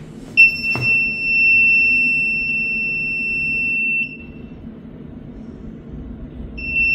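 Handheld aura scanner's electronic buzzer sounding one steady high-pitched tone for about four seconds while it scans a zone, with a click just after the tone starts. The tone stops, then sounds again near the end.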